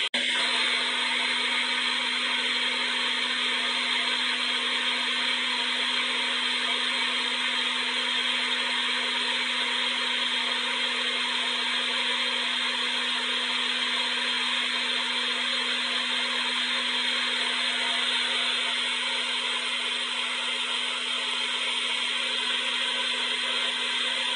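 Hair dryer running continuously at a steady speed: an even whooshing hiss over a constant motor hum, with one momentary break right at the start.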